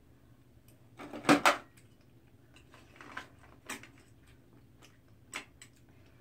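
Metal utensil clicking and scraping against grilled oyster shells and a metal serving tray, with two louder clatters about a second and a half in and a few lighter clicks after.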